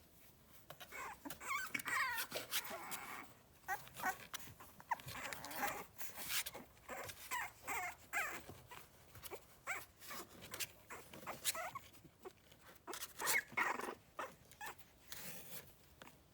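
Boston terrier puppies whimpering and squeaking in short, high calls, with scattered clicks and rustling as they stir.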